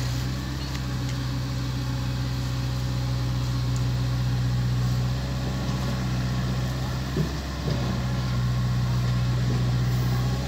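Diesel engine of a CAT compact excavator running steadily under load as it swings a bucket of soil over a dump truck, with the truck's engine also running. A brief knock about seven seconds in as the load is dumped.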